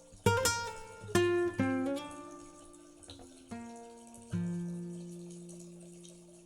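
Solo acoustic guitar playing a slow melody: a few plucked chords in the first two seconds, then single notes around three and a half and four seconds in that ring out and slowly fade.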